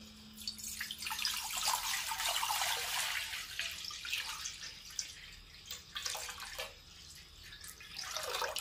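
Water poured in a stream from a steel vessel into an empty metal karahi, splashing loudly at first and then more quietly after about five seconds as the pan fills, with a few last splashes near the end.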